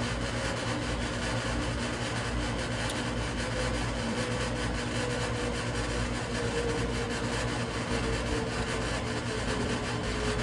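Steady low mechanical hum of an engine or machine, with a faint tone that slowly falls in pitch from about four seconds in.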